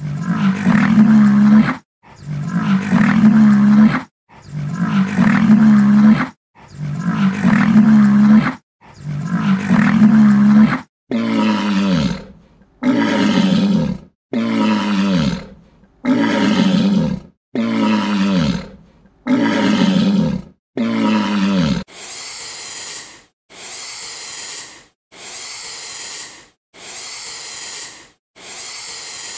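A run of loud animal calls evenly spaced about two seconds apart: five deep, drawn-out calls, then five calls that fall in pitch, then four hissing calls near the end.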